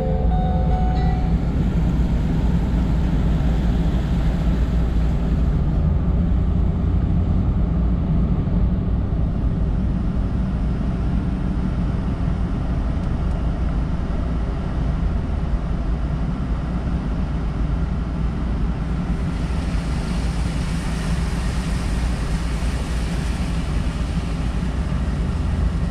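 Road noise inside a moving vehicle's cab: a steady low rumble from the engine and tyres. From about two-thirds of the way through, a hiss grows louder, fitting tyres on wet pavement.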